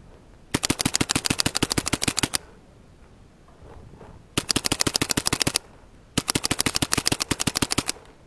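WGP Oracle, an Autococker-type paintball marker, firing three rapid strings of shots, about ten shots a second: the first string about half a second in and lasting about two seconds, then two shorter strings close together after a two-second pause.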